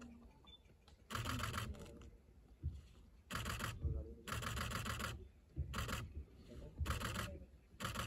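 Camera shutters firing in rapid bursts: about six short bursts of quick clicks, each under a second long.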